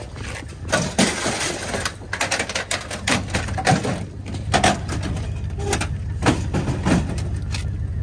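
Old steam boiler being walked across asphalt, rocked corner to corner, its metal base knocking and scraping on the pavement every half second to a second. A steady low hum runs underneath.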